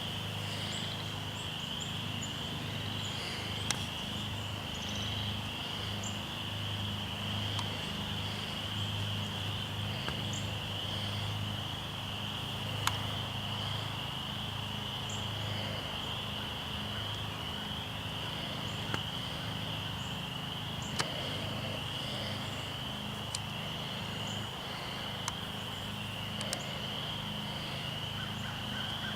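Steady high trilling of an insect chorus, with a low steady hum beneath it and a few faint clicks.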